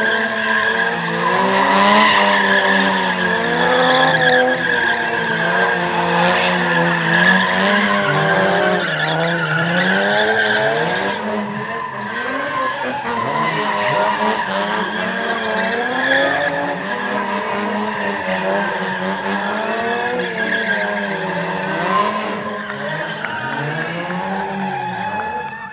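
Two BMW 3 Series drift cars sliding in tyre smoke. Their engines rev hard, the pitch rising and falling with the throttle, over continuous tyre squeal.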